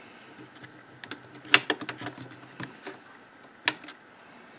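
Light scattered clicks and taps of a Corsair MP510 M.2 SSD being slid into its M.2 socket and handled by fingers, with two sharper clicks, one about a second and a half in and another about two seconds later.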